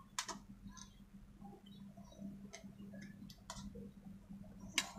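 Someone eating a meal: scattered sharp clicks and taps of eating and cutlery, the loudest near the end, over a steady low hum.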